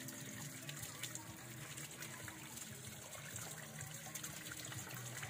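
Forest stream water trickling and running steadily.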